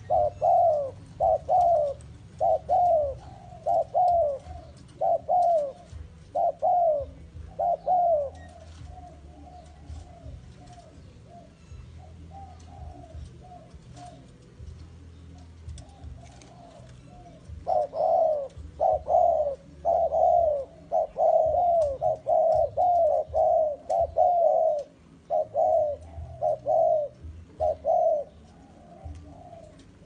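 Spotted doves cooing: repeated falling coo notes in loud runs. The calls soften through the middle, then come back as a long, dense loud run from about 18 seconds in until near the end.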